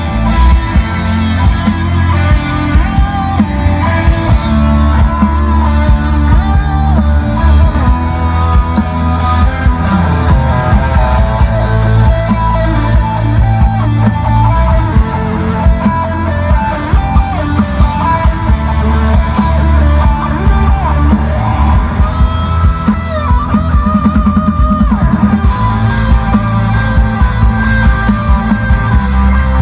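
Rock music with electric guitar, drums and heavy bass played loudly through a large outdoor concert PA of hanging line-array speakers and stacked subwoofers, as during a system tuning or sound check.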